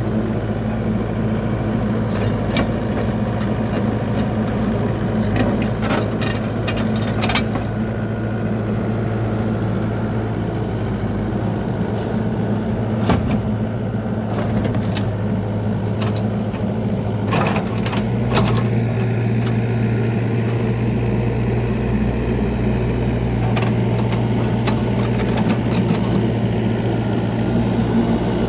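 Engine of a piece of heavy construction machinery running steadily at a constant speed, with scattered sharp metallic clicks and clanks. The engine note shifts slightly partway through.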